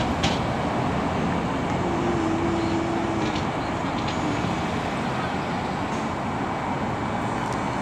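Steady urban traffic noise: a continuous wash of road traffic, with a brief faint steady tone about two seconds in.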